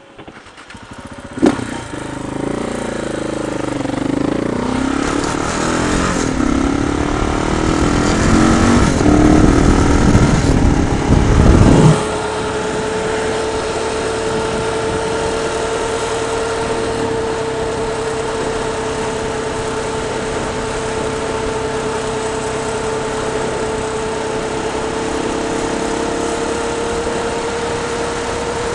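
A motorcycle pulls away from a stop, heard from the rider's camera, with a sharp clunk about a second and a half in. Engine pitch and wind noise rise as it gathers speed. About twelve seconds in the wind noise drops suddenly, and the bike cruises on with a steady engine hum.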